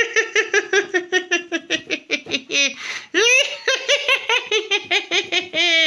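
High-pitched, sped-up cartoon voice laughing in quick repeated ha's, about five or six a second, with a longer drawn-out cry about three seconds in and again near the end.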